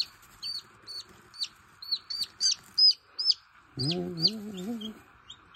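Newly hatched chick peeping: a quick run of loud, high, falling peeps, about two or three a second.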